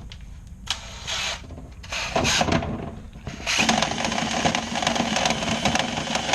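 Power drill spinning a dryer vent cleaning brush on rods inside the vent duct: two short bursts, then a steady run lasting about three seconds.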